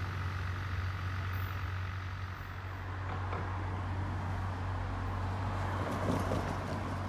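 Steady low drone of an approaching train's diesel locomotive, still far off down the track. A car drives over the grade crossing about six seconds in, its tyre noise swelling and peaking as it passes.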